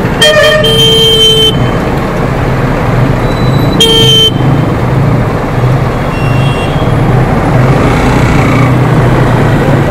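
A vehicle horn honks twice, a longer blast in the first second and a half and a short one about four seconds in, over the steady running of motorcycle engines in slow, queued traffic.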